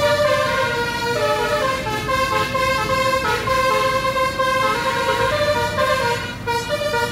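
A tour bus's basuri musical air horn, the 'telolet' kind, playing a tune: a run of sustained horn notes stepping from pitch to pitch, often several sounding together.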